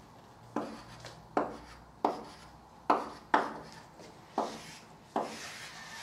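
Chalk knocking and scraping on a blackboard as a square is drawn: seven sharp strokes, each fading quickly.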